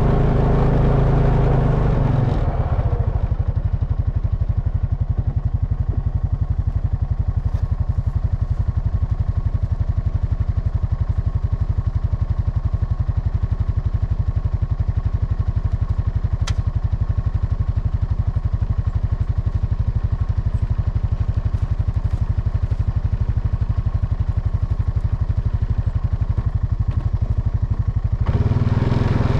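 2004 Honda Rancher ATV's single-cylinder engine running, dropping to a steady idle with even firing pulses about two seconds in, then picking up revs again near the end. A single sharp click sounds about halfway through the idle.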